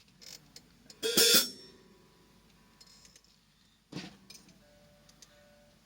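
Scattered drum kit hits: a loud cymbal strike with a drum about a second in, a second hit near four seconds, and light taps in between.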